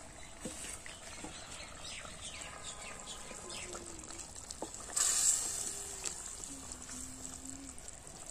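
Kuche fish curry boiling in a clay pot, bubbling as a wooden spatula stirs it, with a short loud hiss about five seconds in.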